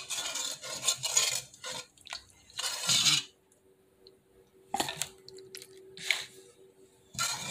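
Spoon scraping and clinking against a pot while soup is dished out into plastic containers: a run of scraping at first, another burst about three seconds in, then a few separate knocks and clinks.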